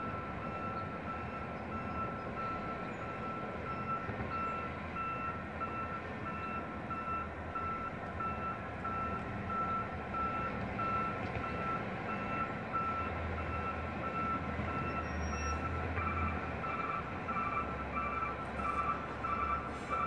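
Truck reversing alarm sounding a steady series of evenly spaced beeps while the truck backs up, over the low running of its engine. About three-quarters of the way through, a second reversing alarm at a slightly different pitch starts beeping alongside the first.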